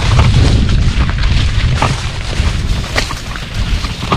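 Low rumbling buffets on the microphone with scattered short clicks and knocks, typical of wind and handling noise while walking outdoors.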